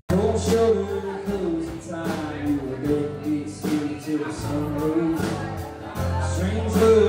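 Music with a singing voice over a steady bass line.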